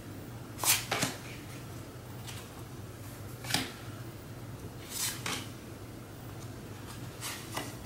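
Thin paper journaling cards flipped through by hand: about seven short paper swishes and slides, several in quick pairs, over a faint steady low hum.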